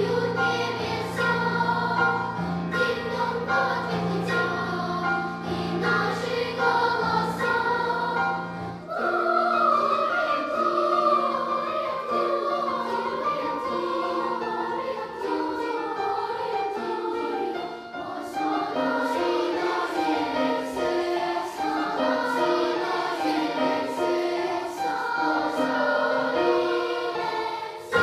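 Children's choir singing an arrangement of a 16th-century French Christmas song, with piano accompaniment. A low held bass note drops away about nine seconds in, leaving the voices over lighter accompaniment.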